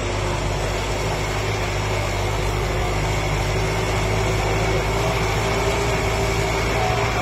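Tractor diesel engine running steadily under heavy load as it drags a disc harrow through ploughed soil, its pitch rising slightly over the few seconds.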